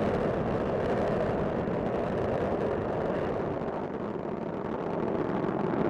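Space Shuttle Discovery's solid rocket boosters and main engines roaring during ascent, a steady, dense rumble that dips slightly in the middle and swells again near the end.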